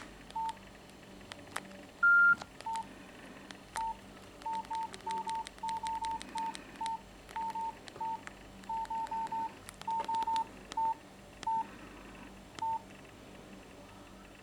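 Nokia 6700 Classic keypad tones: about two dozen short beeps, all at one pitch and spaced irregularly as keys are pressed, with one longer, higher beep about two seconds in and faint clicks between.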